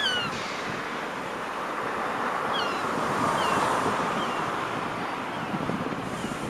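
A train moving through the station makes a steady rushing noise. Several short, high squeaks that fall in pitch come near the start and again around the middle.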